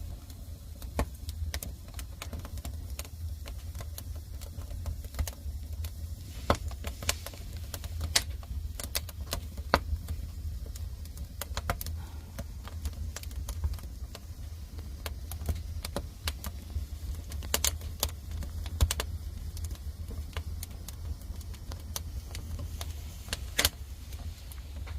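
Firewood fire crackling: irregular sharp pops and snaps over a steady low rumble.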